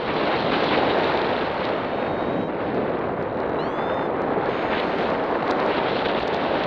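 Airflow rushing and buffeting over the camera microphone of a paraglider in flight, a steady loud wind noise. A few faint short rising whistles come through about halfway.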